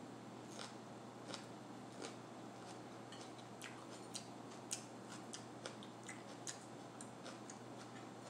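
Close-up chewing of a raw mini pepper spread with cream cheese: a string of irregular crisp crunches and wet mouth clicks, the sharpest about halfway through, over a faint steady hum.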